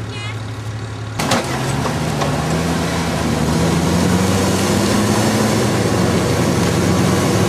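A 4x4 engine runs low and steady, then a sudden click about a second in. After it, a Toyota Hilux pickup's engine runs louder under load, its pitch rising slowly as it climbs a steep dirt bank, then holding.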